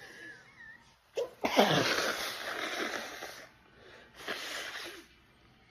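A woman sneezing in a sneezing fit, which the tags put down to allergic rhinitis. A faint breath comes first, then a sharp catch about a second in and a loud, drawn-out sneeze. A second, shorter burst of breath follows about four seconds in.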